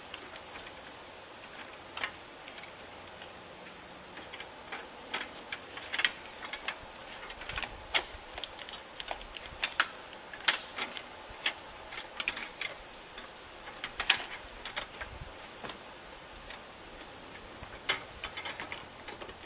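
Irregular clicks, knocks and rustles of a person moving about and handling things, busiest through the middle and loudest about halfway through.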